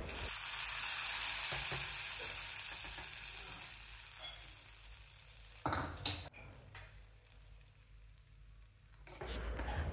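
Hot sesame-oil tempering of mustard seeds, urad dal and curry leaves poured into a pot of cooked rice and vegetables, sizzling and hissing as it hits the wet rice and dying away over about four seconds. A couple of brief knocks follow, about six seconds in.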